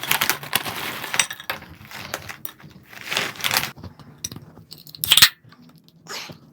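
Plastic snack bag of Bburinkle popcorn being handled and opened: dense crinkling at first, then separate crackly rustles, with one short loud crackle about five seconds in.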